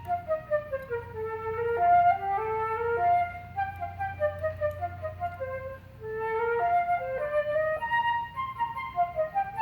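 Solo flute playing a quick passage of short notes, opening with a falling run, with a brief break about six seconds in.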